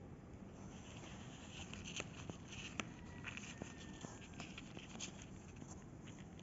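Faint scratching and rustling on cardboard as a hand and newborn kittens move on the floor of a cardboard box, with scattered small clicks, the sharpest about two and three seconds in.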